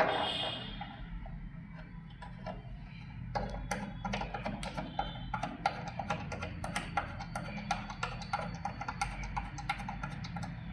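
Metal bracket and screws being handled while a monitor is fixed onto a dual monitor stand arm: a ringing clink at the start, then a run of irregular sharp clicks and taps, several a second.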